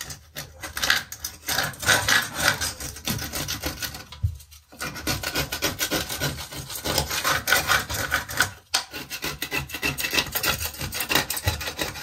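Handheld silicone removal tool scraping old silicone sealant out of the joint between a shower tray and the wall, in quick repeated scraping strokes. There is a short break a little over four seconds in.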